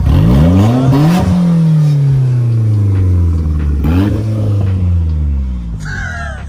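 A vehicle engine revs: it climbs sharply in the first second and winds down slowly over several seconds. It revs up again briefly about four seconds in and falls off.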